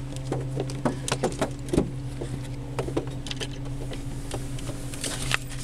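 Kea parrots' beaks and claws tapping and scraping on a car's windscreen and bodywork: irregular sharp clicks over a steady low hum.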